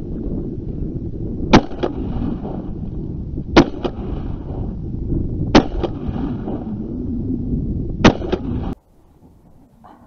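Four shotgun shots from an MP-155 semi-automatic shotgun, fired about two seconds apart. Each is followed a fraction of a second later by a fainter second crack. A steady low rumble runs under the shots and cuts off suddenly near the end.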